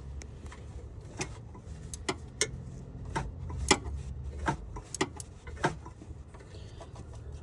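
Irregular sharp clicks and ticks, about a dozen, from a wrench turning a 2012 Honda CR-V's crankshaft by hand, over a low steady hum. The crank keeps turning, so the engine is not seized.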